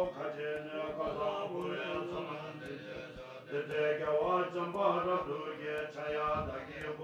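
Male voices chanting a Buddhist mantra in long, sustained tones over a low drone, with faint clicks now and then.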